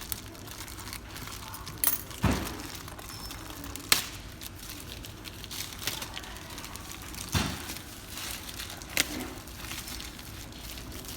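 Unboxing of a new futsal ball: its packaging is handled and opened, with crinkling and several sharp clicks and knocks, the loudest about two and four seconds in.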